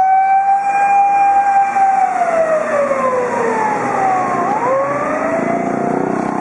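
Fire-engine siren wailing: the tone holds steady at a high pitch for about two seconds, slides down over the next two, then rises again about four and a half seconds in.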